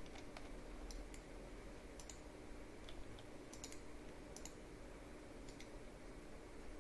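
Sparse, irregular keystrokes on a computer keyboard, about a dozen faint clicks, over a faint steady hum.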